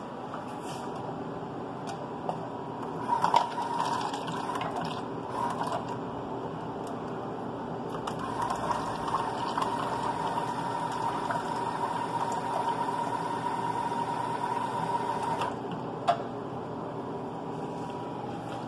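Water running from a faucet as a steady rush. It grows louder about eight seconds in and drops back suddenly a few seconds before the end, with a sharp click just after.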